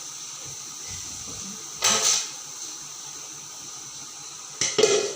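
Metal kitchen utensils and pots clattering: a short clatter about two seconds in and a few quick knocks near the end, over a steady background hiss.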